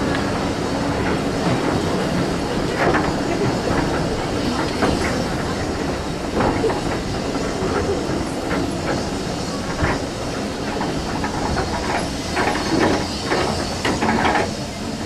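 A steam-hauled passenger train rolling along, heard from an open carriage window: carriage wheels rumbling with irregular knocks and clanks, and the hiss of steam from the BR Fairburn 2-6-4 tank locomotive ahead.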